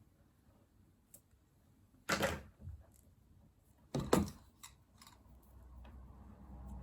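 Handling noise on a workbench: two short clattering bursts about two seconds apart, then a few light clicks.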